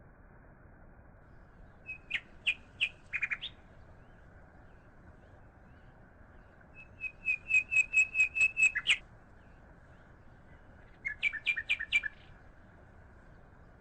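A songbird singing three short phrases of quick repeated chirps, each lasting one to two seconds, with pauses between, over a faint steady hiss.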